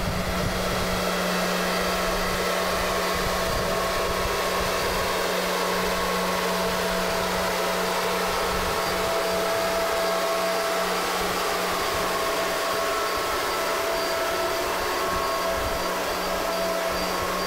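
Rubber-tyred box-girder transporter running, a steady mechanical drone with a low hum and a few faint steady whines above it.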